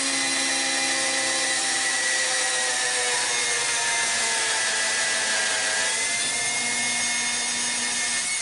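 Cordless drill boring a pilot hole into the end of a solid oak dowel rod, the motor running steadily with its pitch sagging slightly as the bit bites, then stopping abruptly near the end.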